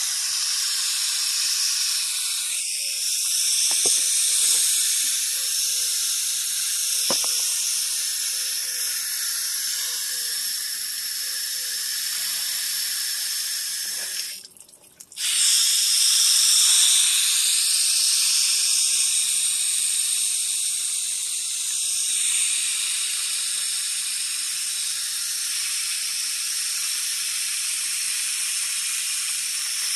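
Garden hose spray nozzle hissing steadily as a spray of water falls on potted succulents. It cuts out briefly about halfway through.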